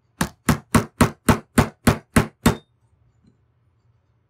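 Hammer tapping the firing-pin roll pin into a Ruger 10/22 bolt to seat it: nine quick, evenly spaced taps, about four a second, stopping about two and a half seconds in.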